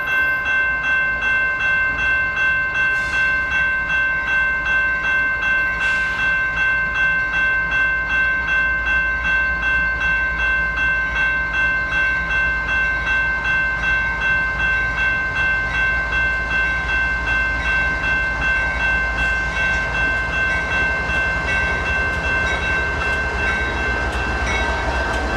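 Train air horn holding a chord of several notes without a break, over the low rumble of a train. The loudness pulses about two to three times a second.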